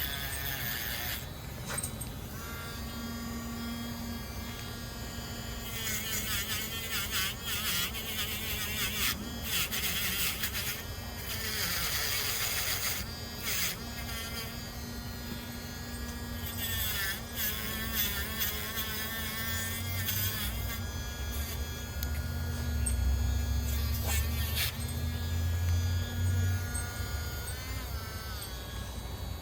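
Dremel rotary tool running a wire brush against a knife blade: a steady high whine whose pitch dips and recovers now and then as the brush bears on the steel.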